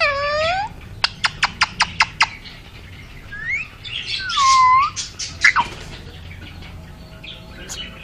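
Indian ringneck parrot calling: a short call at the start, a quick run of about eight sharp clicks, then a louder call about halfway through that dips and rises in pitch.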